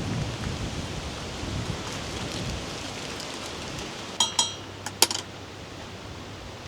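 Steady wind noise with four sharp, ringing clinks of tableware a little past four seconds in.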